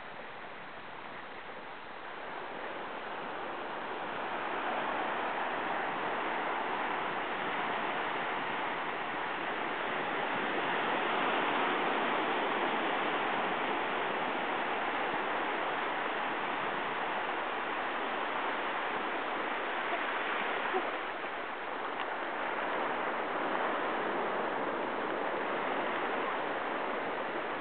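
Small waves breaking and washing over the shallows: a steady rushing noise that grows louder a few seconds in and dips briefly about two-thirds of the way through.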